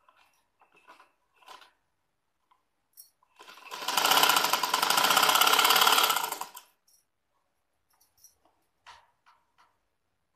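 Sewing machine stitching in one short run of rapid, even needle strokes, starting about three and a half seconds in and stopping about three seconds later. Small clicks and rustles of cloth being handled come before and after.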